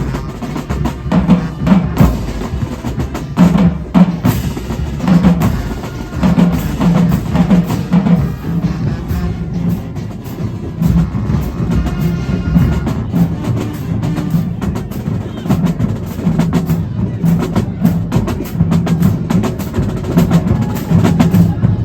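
Marching band drumline playing together: snare, tenor and bass drums in a fast, steady rhythm of sharp strokes.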